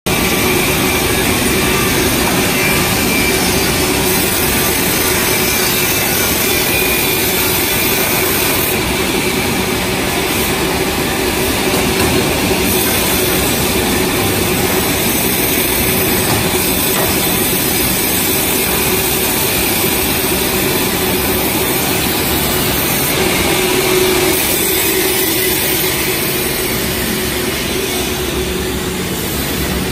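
A 450 mm circular rip saw running and ripping 54 mm teak boards: a loud, steady machine drone with a constant tone.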